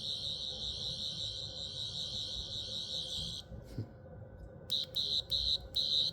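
Metal replica Doctor Who sonic screwdriver playing its single electronic sound effect: a high-pitched tone that is held for about three seconds and then stops. After a short pause it comes back as several quick bursts near the end as the button is pressed again.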